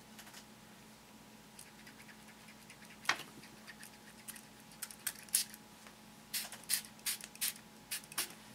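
Scattered light clicks and taps of small craft pieces being handled on a tabletop: one sharper click about three seconds in, and more frequent taps in the second half.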